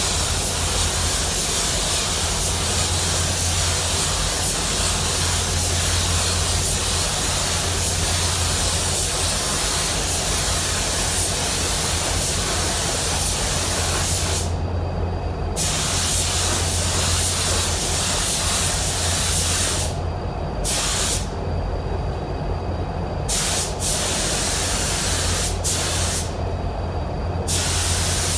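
Compressed-air paint spray gun hissing steadily as its trigger is held through spray passes on a truck bedside. In the second half the hiss cuts out and returns several times as the trigger is released between passes, over a steady low hum.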